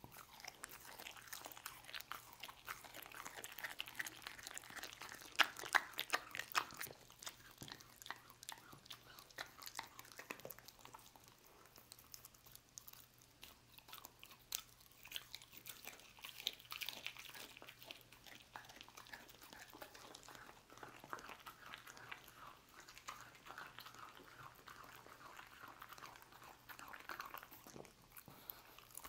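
A dog chewing and biting a piece of roast beef: irregular wet chews and bites, with the loudest bites about five to seven seconds in.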